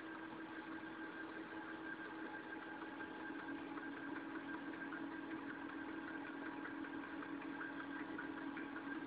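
DC motor driving a two-stage gear train with a damaged gear tooth, running steadily under light dynamometer load: an even machine hum with two steady tones.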